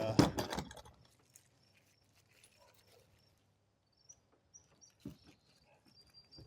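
A quick clatter of knocks as hardware is handled, then quiet with insects chirping in a steady, high, repeating pattern and a single thump about five seconds in.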